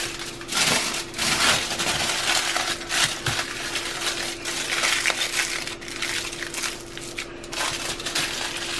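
Aluminium foil crinkling and crackling as hands fold and pack it tightly around a parcel of cornmeal batter, in quick irregular rustles throughout. A steady low hum runs underneath.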